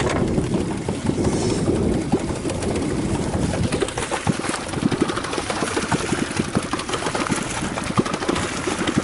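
Boat engine idling steadily, a low, even running sound with small irregular knocks through it.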